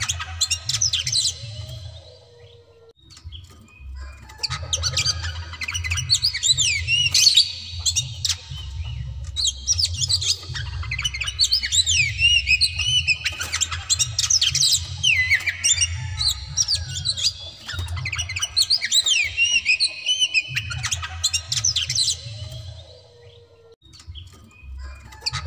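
Oriental magpie-robin singing a fast, varied song of sweeping whistles mixed with sharp clicking notes. The song breaks off briefly about two seconds in and again near the end.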